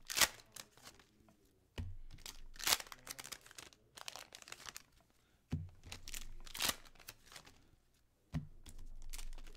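Hockey card pack wrappers crinkling and tearing and cards being handled, in several short bursts, with a few soft knocks on the table about two, five and a half and eight and a half seconds in.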